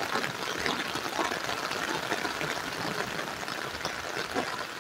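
Heavy rain falling: a steady, dense patter of drops.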